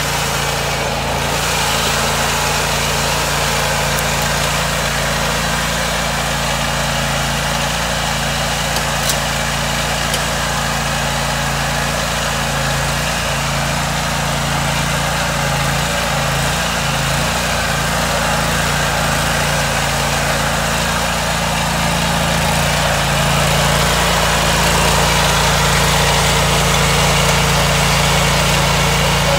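Toro Grandstand stand-on mower's engine running at a steady speed, getting a little louder for the last several seconds.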